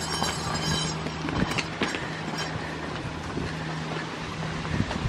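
Goat hooves and footsteps clicking irregularly on brick paving, over a steady low hum.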